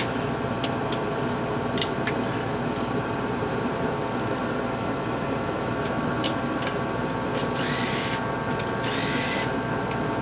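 Power tool, a drill or impact driver, running during an engine teardown, with a steady mechanical hum, scattered clicks, and two short spin-ups near the end.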